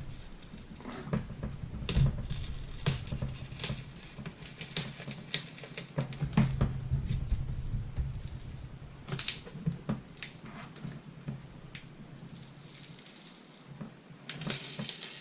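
Irregular clicks and crackles of plastic and heat-softened adhesive as a broken laptop LCD panel is prised away from its plastic lid panel by force. The clicks are sparse and uneven, with a quieter stretch near the end.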